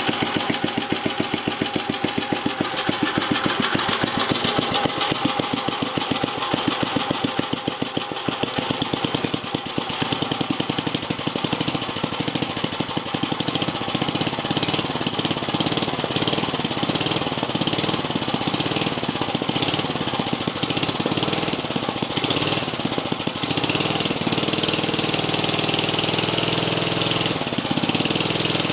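1979 Briggs & Stratton 5 hp single-cylinder flathead engine running. It starts at a slow idle with distinct firing beats and speeds up through the second half as its throttle linkage is worked by hand, ending in a louder, steadier run.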